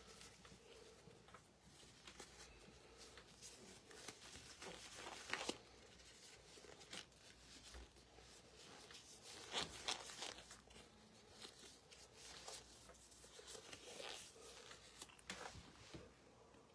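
Faint rustling and scattered light clicks, the loudest about five and ten seconds in.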